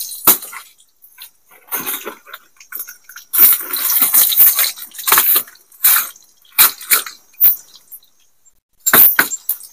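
Tempeh frying in hot oil in a small pan, sizzling and spattering in irregular bursts as the pieces are turned with a bamboo stick. The longest burst comes a little past the middle.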